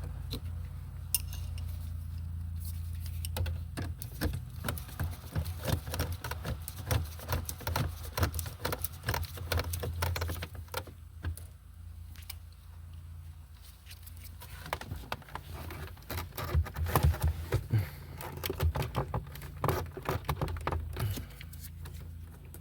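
Dense, irregular clicking, tapping and rattling of plastic dash trim, console and wiring connectors being handled and worked into place in a car's dashboard, over a steady low hum.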